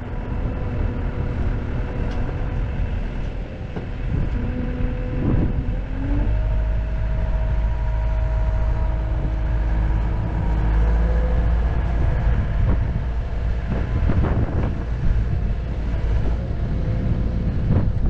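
Skid-steer loader running while it carries a round hay bale toward a flatbed trailer. The engine's low rumble grows louder and its pitch steps up about six seconds in, as it works harder.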